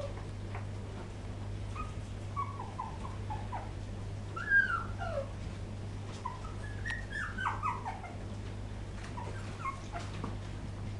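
Young poodle puppies whimpering and squeaking: short, high, mostly falling cries in little clusters every second or two, the loudest about halfway through, over a steady low hum.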